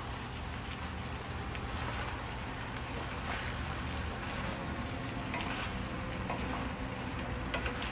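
Spicy chicken and vegetables cooking in a cast-iron skillet, a steady sizzling hiss over a low steady hum, with a few light scrapes as a spatula stirs the pan.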